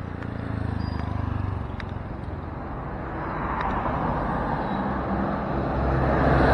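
Motor vehicle approaching: a low engine hum under road noise that grows steadily louder from about halfway through.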